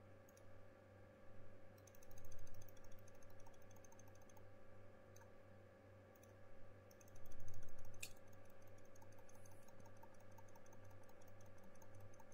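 Runs of rapid clicks from a computer keyboard and mouse, with one sharper click about eight seconds in, over a steady low hum.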